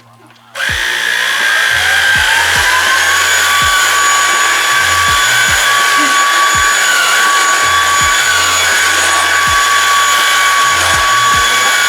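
Redmond vacuum cleaner switched on in turbo mode. The motor starts abruptly, its whine rising in pitch for about two seconds, then runs steady and loud over a rush of air.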